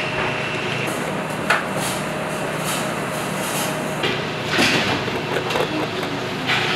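Busy restaurant kitchen ambience: a steady hum of kitchen equipment, with a few short knocks and clatters about a second and a half in, around four and a half seconds, and near the end.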